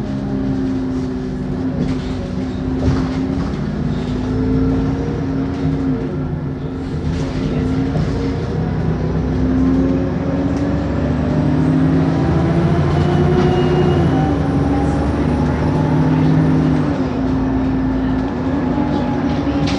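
Bus diesel engine running under load, with a high-pitched turbocharger whine that rises as the bus accelerates, holds, then falls away near the end.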